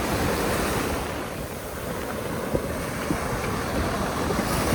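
Sea surf washing onto a beach, a steady rush, with wind buffeting the microphone as a low rumble.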